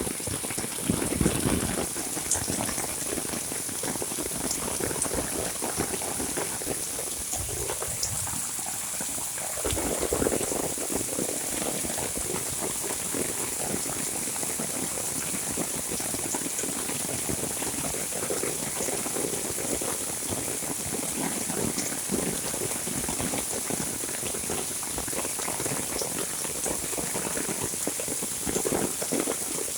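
Heavy monsoon rain falling steadily, dense drops striking the ground and surfaces, with a few brief louder swells and a steady high hiss underneath.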